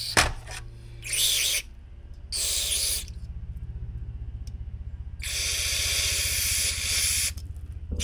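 Aerosol carburetor cleaner sprayed through its straw into a lawn tractor carburetor: two short hissing squirts, then a longer spray of about two seconds near the end. A steady low hum runs underneath.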